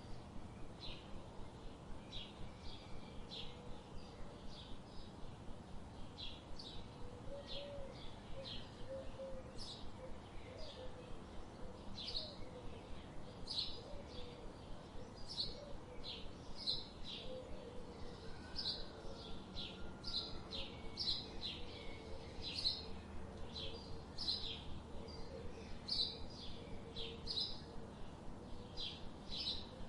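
Birds chirping: a continuous run of short, high chirps, about two a second, with a fainter low, wavering call underneath.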